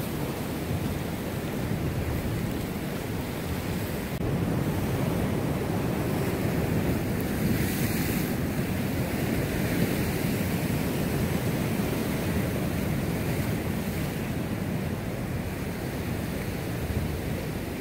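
Ocean surf washing over rocks, with wind on the microphone. The wash swells louder about eight seconds in.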